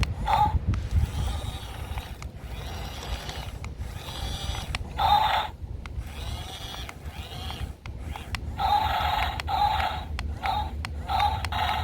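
Small electric motors and plastic gears of a remote-control toy bulldozer whirring in short start-stop bursts as it is driven, with the longest run near the end.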